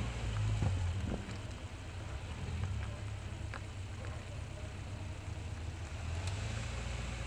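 Caterham Roadsport race car's four-cylinder engine running at low, steady revs as the car rolls slowly, heard onboard with wind on the microphone.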